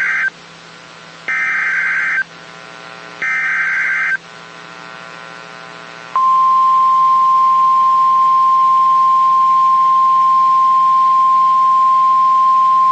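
NOAA Weather Radio Emergency Alert System signal: three harsh, buzzy SAME data bursts, each about a second long and a second apart, then about six seconds in the steady 1050 Hz weather alert tone begins and holds.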